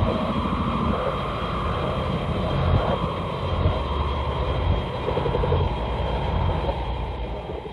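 Hedorah monster sound effect: a dense, low rumble with a thin, steady high whine over it, fading away near the end.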